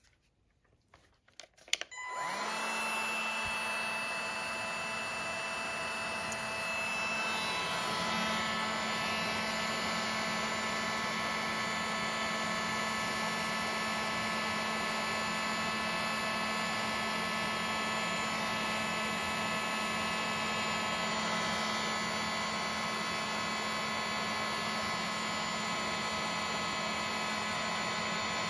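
DeWalt heat gun switched on about two seconds in after a click, then running steadily with a constant fan whine and rush of air as it shrinks adhesive heat shrink tubing over a braided sleeve.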